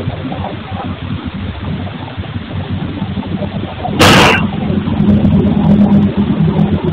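Granite-processing workshop machinery running with a steady, noisy motor drone. About four seconds in comes a sudden loud, harsh burst lasting under half a second, after which the drone is louder.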